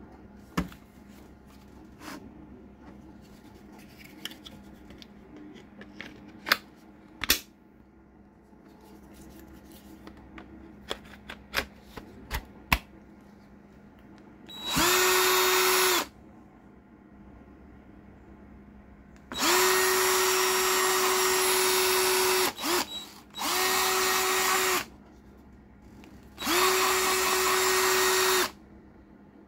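Plastic clicks and handling as the battery and adapter are fitted to a Parkside cordless drill. Then the drill's motor runs free four times, for one to three seconds each, every time spinning up quickly to a steady whine, with a short trigger blip between the second and third runs: the drill is running off a Bosch ProCORE 18V battery through the adapter.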